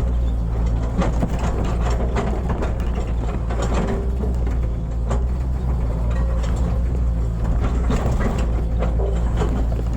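Hitachi hydraulic excavator's diesel engine running steadily under load, with irregular knocks and clanks from the working machine as it digs.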